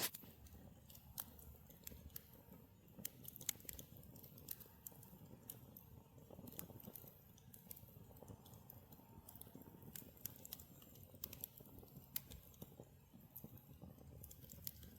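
Small wood campfire crackling: irregular sharp pops and snaps, a few louder than the rest, over a faint low rumble.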